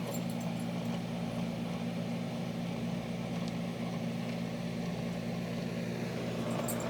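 Window air conditioner running: a steady low hum from the compressor under the even rush of its fan.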